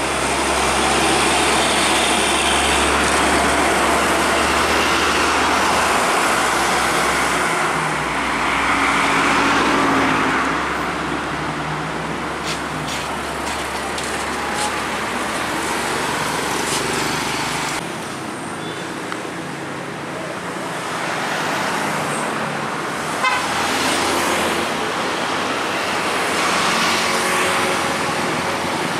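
Busy road traffic: heavy diesel trucks, cars and motorcycles passing, with horn toots. A deep truck-engine drone underlies the first part and cuts off about two-thirds of the way through.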